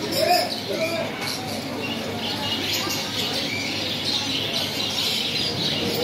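Many caged birds chirping and chattering at once, a steady high din of overlapping calls.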